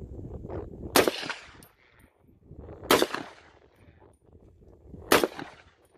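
Three gunshots from a firearm, each a sharp crack with a short decaying tail, about two seconds apart.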